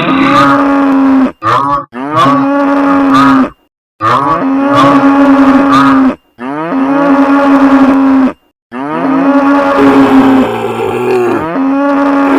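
Cattle mooing: a string of long, loud moos, about five, each one to two seconds long with short gaps between. Near the end the moos overlap, as if from more than one animal.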